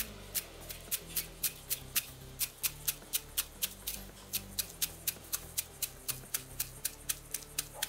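Chef's knife chopping celery on a plastic cutting board: a steady run of crisp knocks, about four or five cuts a second.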